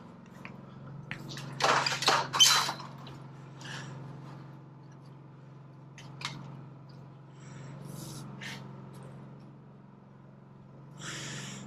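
Aluminum sheet metal being handled and worked by hand: a few short rustling and scraping noises, the loudest about two seconds in, over a steady low hum.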